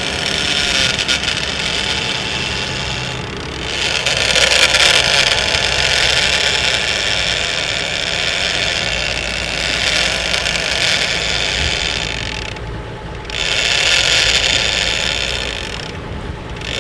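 Shimano lever-drag trolling reel's drag screaming as line peels off on a strike, a continuous high mechanical whir that dips briefly twice. A steady boat engine and wake rumble sit underneath.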